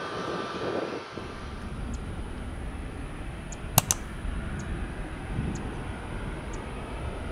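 Steady low rumble of jet airliner engines, with two sharp clicks in quick succession about halfway through.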